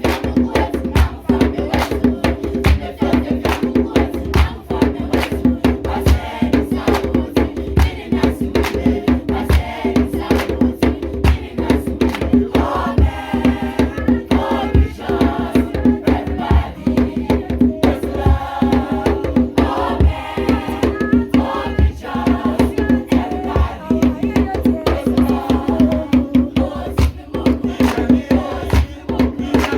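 A children's choir singing together over a fast, steady percussion beat, the voices strongest in the middle stretch.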